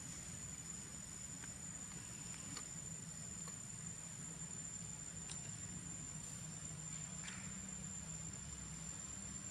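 A faint, steady, high-pitched insect drone, with a low hum beneath it and a few brief faint chirps scattered through.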